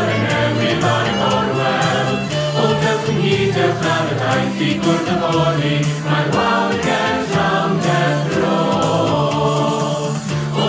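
Mixed choir of male and female voices singing a Welsh song, accompanied by piano and violin; the parts were recorded separately at home and mixed together.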